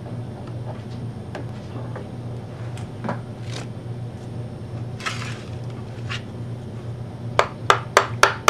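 Light handling clicks and a brief scrape on a brake master cylinder, then near the end a quick, regular run of sharp metal taps, about three a second. This is a small retaining key being driven in to lock the plastic reservoir onto the master cylinder.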